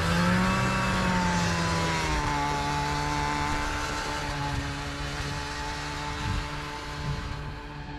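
Snowmobile engine revving, then dropping in pitch about two seconds in and running at a steady speed, growing gradually quieter.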